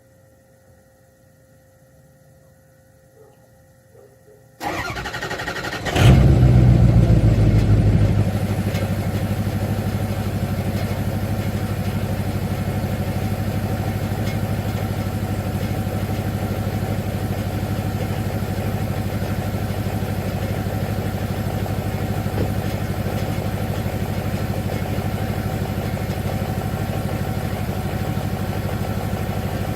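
2006 Ford 6.0 Power Stroke V8 turbo-diesel, straight-piped with a muffler, cold-started at about 30°F. After a few quiet seconds it cranks briefly, catches and runs loud for about two seconds, then settles to a steady idle.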